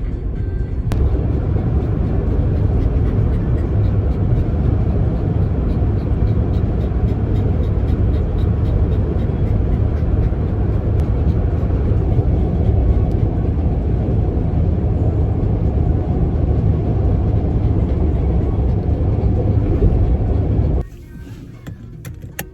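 Steady road and engine rumble heard inside a moving car, heaviest in the low end, cutting off abruptly near the end.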